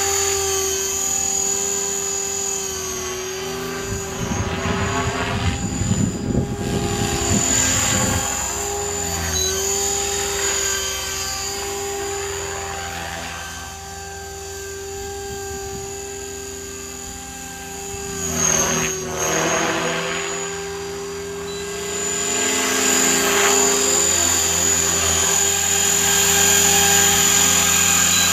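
Align T-Rex 500 electric RC helicopter flying: a steady high motor whine over the rotor blades' whoosh, swelling and fading as it manoeuvres. A rough rumble breaks in for a few seconds early on the way through.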